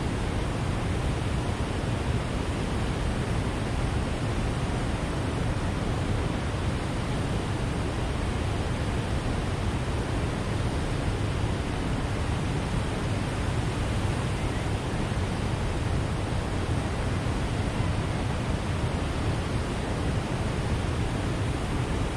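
Steady rush of water flowing out below a dam, an even hiss and rumble that does not change.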